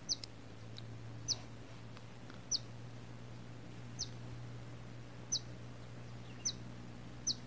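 A small bird chirping repeatedly in the background, short high downward-sliding chirps about once every second or so, over a faint steady low hum.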